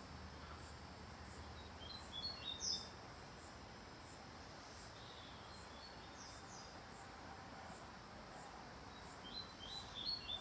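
Papa-capim seedeater giving short, broken bursts of quick high chirps, twice, with a few softer notes between: a bird close to breaking into full song but not yet singing it through.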